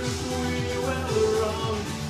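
Synthpop music: synthesizer chords and melody played on a keyboard over a steady electronic kick-drum beat.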